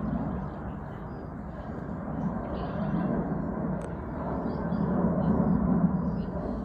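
Steady low rumble of outdoor background noise, swelling and easing slowly, the kind of traffic drone heard across the lake, with faint short high chirps over it.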